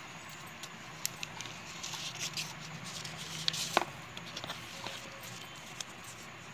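Handling of a trimmer's packaging: a paper leaflet, cardboard inserts and a thin plastic sheet rustling, with scattered small clicks and taps. The loudest is a sharp click a little under four seconds in. A faint low hum runs underneath.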